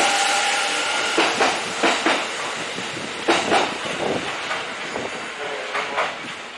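Kintetsu 80000 series Hinotori limited express train running past a station platform. A rush of wheel and rail noise fades as the last car goes by, leaving a string of wheel clacks over the rail joints that grow fainter.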